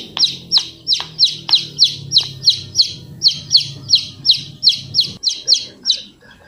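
A bird chirping in a fast, even series of short, high, falling chirps, about three to four a second, which stop shortly before the end. A low steady hum runs beneath them and ends about five seconds in.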